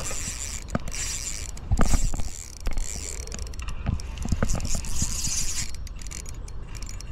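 Spinning fishing reel being worked by hand, with whirring and clicking from its gears and line, and a few louder knocks about two and four seconds in. A steady low rumble of wind on the microphone runs underneath.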